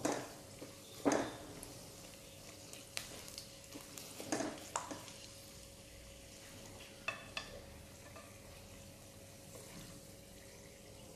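Silicone spatula scraping and tapping in a white wok as fried cashews are lifted out of hot peanut oil, with about seven short scrapes spread out among quiet stretches, over the soft sizzle of the oil.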